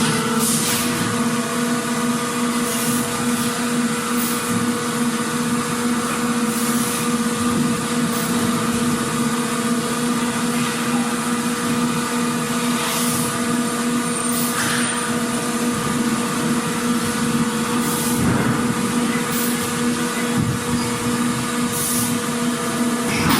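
Factory machinery ambience: a steady mechanical drone with a constant low hum and a higher tone, broken by short bursts of noise every few seconds.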